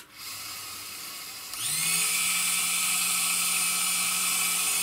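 Small electric servo motor and gear train of an aircraft angle-of-attack indicator running after its input is disconnected: a click, a soft whirr, then about one and a half seconds in a louder steady whine that climbs quickly to pitch and holds. The motor is driven by the indicator's error circuit, which keeps it running for several seconds when the input is out of range.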